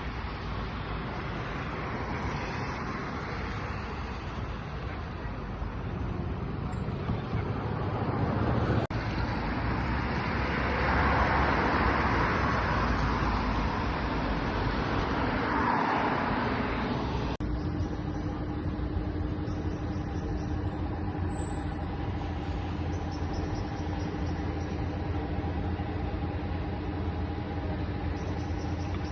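Road traffic noise, swelling as a vehicle passes about halfway through, then a steady engine hum.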